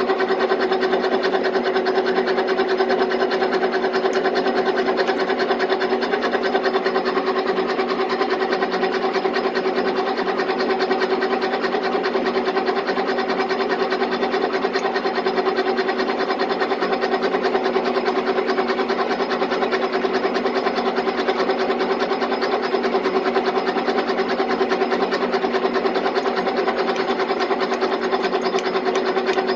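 Electric drill running steadily under load as it bores a hole into a metal part, a constant motor hum with no pauses, taken carefully to depth for a blind hole that will be tapped for a screw.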